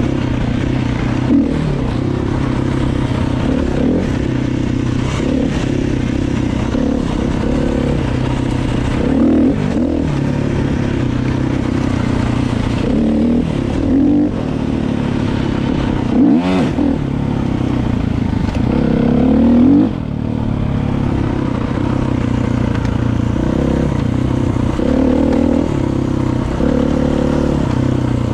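Motorcycle engine running under way, its pitch rising and falling as it is revved and shifted. The revs climb to a peak and drop off sharply about twenty seconds in.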